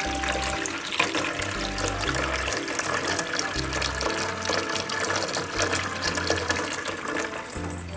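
Water running from a tap, a steady splashing hiss, over background music with a bass line.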